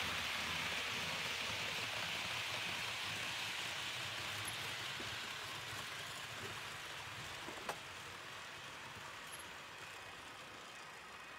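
HO-scale model train of Railjet coaches behind a Taurus electric locomotive running on the layout's track: a steady rushing noise of wheels and motor that slowly fades, with a single sharp click about three quarters of the way through.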